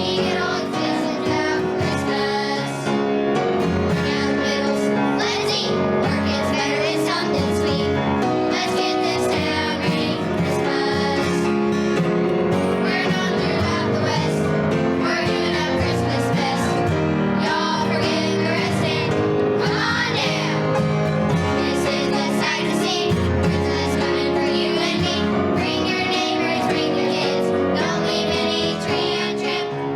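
A children's choir singing with instrumental accompaniment.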